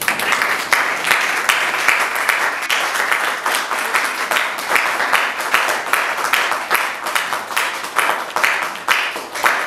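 A small audience applauding, breaking out all at once and keeping up a steady patter of individual claps.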